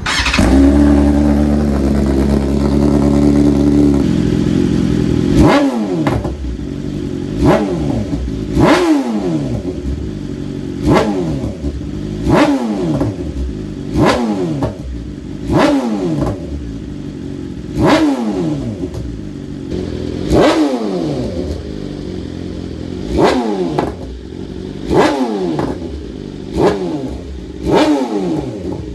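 BMW S1000RR inline-four engine running through a new Akrapovic titanium full exhaust system. It idles steadily at first, then from about five seconds in is blipped about a dozen times, each rev a quick rise and fall in pitch, roughly every two seconds.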